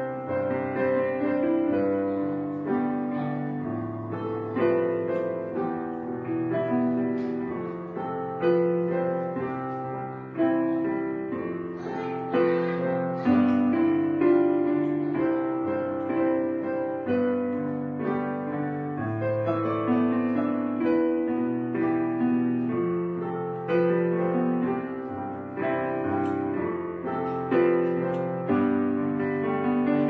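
Background piano music, notes struck and left to fade, at a steady level throughout.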